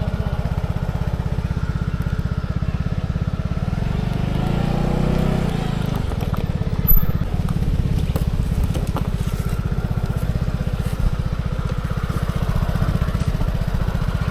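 Vespa scooter's single-cylinder engine running steadily while riding, its pitch rising and falling about halfway through, with one short sharp knock just after.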